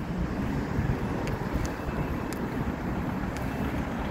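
Wind buffeting the phone's microphone over passing road traffic, with a few faint ticks.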